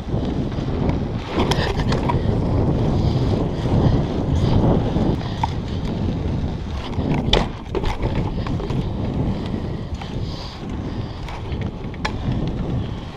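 BMX bike rolling over concrete paths: steady tyre rumble and frame rattle, with wind buffeting the chest-mounted camera's microphone. A few sharp knocks from the bike, the loudest about seven seconds in.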